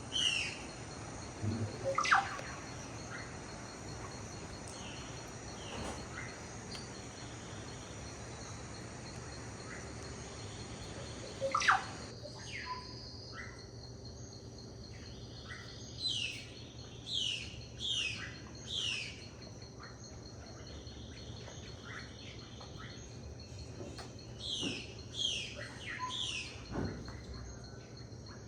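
Amazon rainforest ambience: birds calling in runs of short, high, downward-sweeping notes, with two louder calls that swoop down in pitch, over a steady high buzz of insects.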